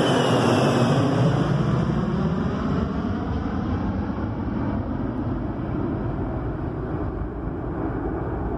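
Airbus A319 airliner's twin turbofan jet engines at climb power just after takeoff: a steady jet roar passing overhead, its pitch falling as it passes and slowly fading as the plane climbs away.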